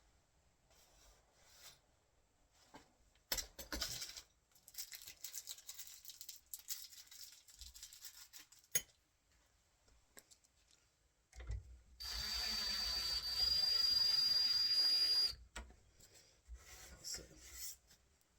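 Cordless drill driver running for about three seconds, driving a screw to fix a door latch into the door edge, with a steady high whine that steps up slightly partway through. Before it come quiet handling and rubbing sounds and a few sharp clicks.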